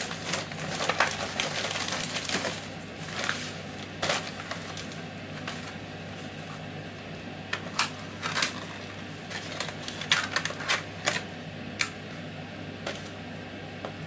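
Plastic mailer bag and packaging being handled: a dense crinkling and rustling of plastic for the first two seconds or so, then scattered crackles and clicks as a cardboard box and a plastic-sleeved soldering iron are taken out. A steady low hum runs underneath.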